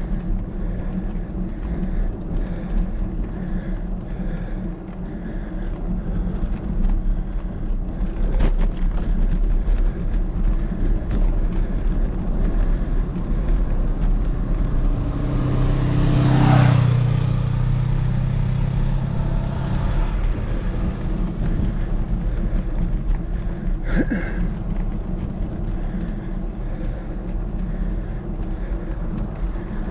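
Steady wind and road noise from a bicycle climbing a road hill. A motor vehicle passes, swelling to its loudest a little past halfway and then fading.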